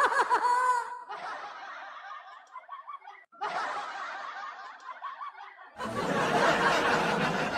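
Recorded laughter sound effects played back one after another, a short clip of chuckling and then a louder burst of crowd laughter starting about six seconds in.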